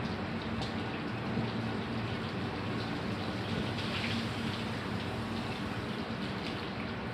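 Water running and splashing steadily, as in washing down a house, with a faint low hum underneath.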